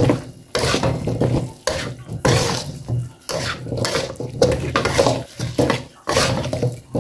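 Metal spatula stirring and scraping potato chunks through spice paste in a wok, in a run of uneven strokes about once a second with short pauses between them.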